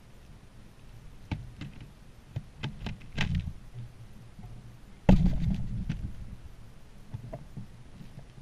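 Sharp taps and knocks of birds pecking and hopping on a snowy wooden platform feeder, close to the microphone. About five seconds in there is a louder thump, followed by a quick flurry of taps.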